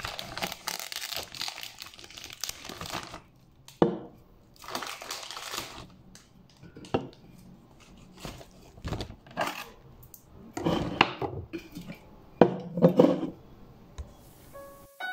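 Plastic shrink-wrap around a six-pack of aluminium drink cans crinkling as it is pulled open, then the cans knocking down onto a table one after another, with short rustles of the plastic in between.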